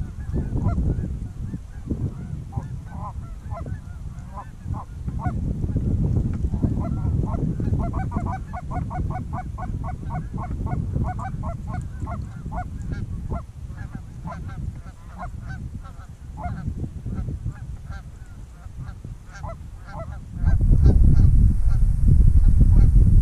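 Canada geese honking: many short calls in quick succession, thickest around the middle, over a steady low rumble that grows much louder near the end.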